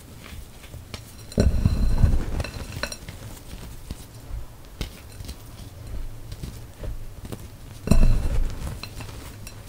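Hands crushing and rubbing crumbled gym chalk in a bowl: soft crunching with many small crackles, and two louder bursts of crushing, about a second and a half in and about eight seconds in.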